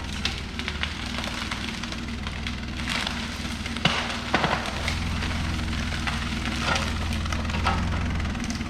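Mini excavator's diesel engine running steadily, a little louder about halfway through, with scattered sharp crackles and snaps of brush and debris being pushed aside.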